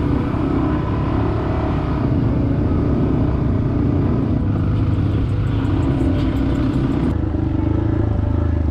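Yamaha XT250's single-cylinder four-stroke engine running steadily under way on a dirt trail; its note shifts a little after about seven seconds.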